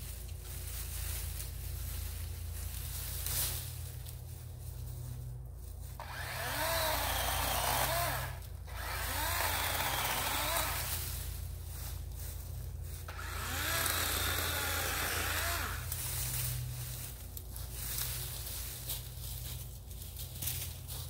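DeWalt 20V XR brushless battery chainsaw cutting brush in three short runs. Its whine dips and recovers in pitch as the chain loads in the cut.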